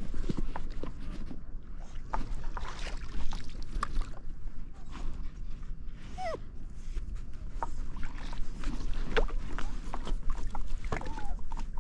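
Paddle strokes on a stand-up paddleboard: water splashing and dripping off the paddle, with irregular small knocks and a steady low rumble. A short whine falls in pitch about halfway through.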